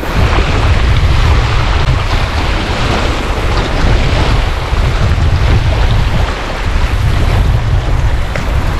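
Wind buffeting the microphone: a loud, low rumble that swells and dips, over a steady rushing hiss.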